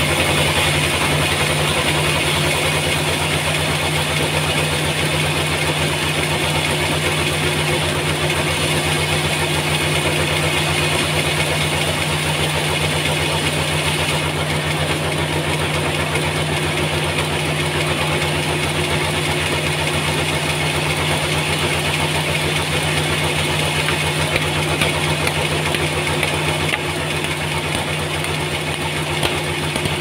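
Large band sawmill running steadily, its blade sawing lengthwise through a big trembesi (rain tree) log: a constant machine hum with a bright hiss of the cut, the hiss easing slightly about halfway through.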